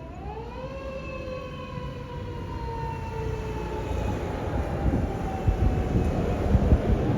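Chemical fire engine's mechanical motor siren winds up quickly in pitch, slowly falls away over several seconds, then winds up again near the end. The truck's engine and road noise under it grow steadily louder.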